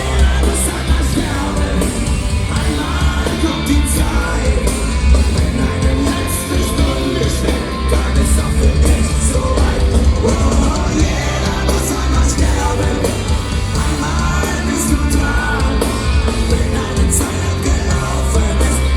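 Punk rock band playing loud and live in a large hall: electric guitars, bass and drums with cymbal strokes, under shouted singing.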